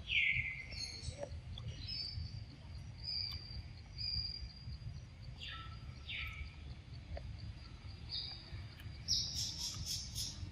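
Forest birds calling: a few clear calls that sweep down in pitch, one right at the start and two more about halfway, and a quick cluster of high chirps near the end, over a steady low rumble.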